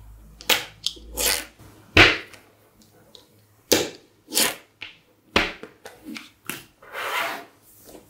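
Small magnetic metal balls clicking and snapping together as a block of them is pressed onto and slid against a plastic card: a run of sharp clicks, the loudest about two seconds in, with a few longer rattling scrapes.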